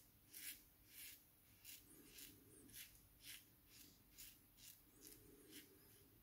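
Open-comb safety razor (Goodfellas' Smile with an Astra Platinum blade) scraping through lathered stubble on the neck in about a dozen short strokes, roughly two a second, on the across-the-grain pass. The strokes are faint.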